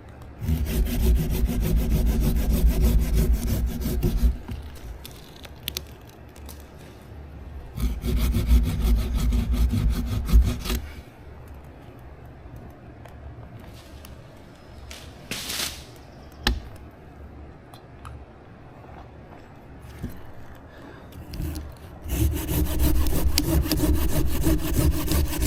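A saw cutting through soft basswood in three bouts of rapid strokes: one starting about a second in, another around eight seconds in, and a third near the end, with quieter pauses and a few small clicks between.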